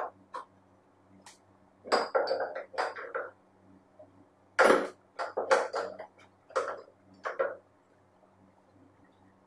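Ceramic mugs clinking and knocking against each other and on a wooden tabletop as they are handled and set down, in a series of short clusters. The loudest clink comes at about four and a half seconds.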